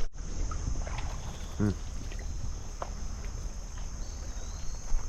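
Steady high-pitched insect chorus buzzing over a low rumble of outdoor movement noise, with a short vocal sound about a second and a half in.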